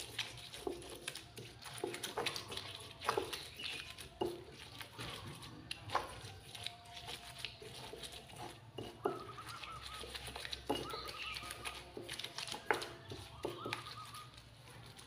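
Stone pestle grinding chili paste in a stone mortar (Indonesian cobek and ulekan): irregular knocks and scrapes of stone on stone as the paste is crushed and pushed around the bowl.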